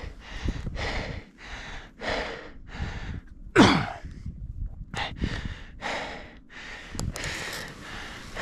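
Skis scraping and hissing on snow in quick short turns, about two a second, with one louder swish carrying a falling tone about three and a half seconds in.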